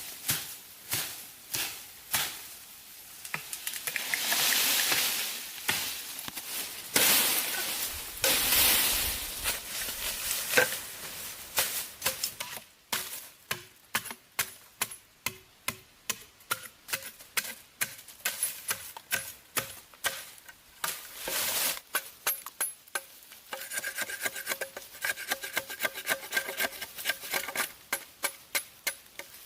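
Repeated short knocks and scraping from hand work, with longer rasping strokes a few seconds in, then a run of sharp knocks about two a second.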